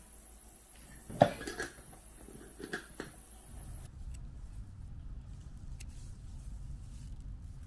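A spoon clinks and scrapes against a cast-iron skillet as toasted nuts are scooped out, a few sharp knocks with the loudest about a second in. Then comes a low steady rumble of wind on the microphone.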